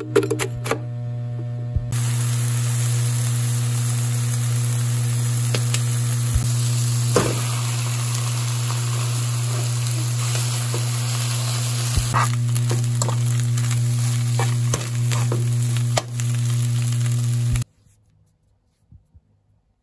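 Rice, eggs and chopped green onion and peppers sizzling in a frying pan, with a few knocks of a utensil, over a steady low hum. It opens with a few snips of kitchen scissors cutting vegetables, and the frying cuts off suddenly near the end.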